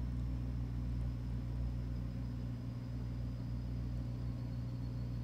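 Steady low motor hum with several even, unchanging tones, and a faint high whine above it.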